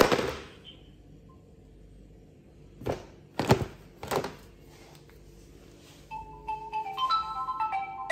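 A loud dull knock, then three more knocks about half a second apart around three to four seconds in. About six seconds in, a phone ringtone starts: a quick run of short marimba-like notes.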